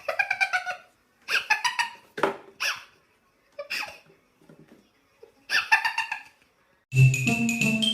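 Kitten mewing: about five short, high-pitched calls spread over six seconds. Music with mallet-percussion notes comes in near the end.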